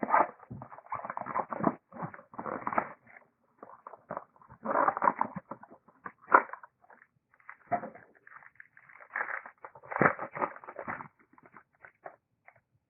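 Trading cards and their packaging being handled on a table: irregular rustling, sliding and scratching in short bursts with brief pauses.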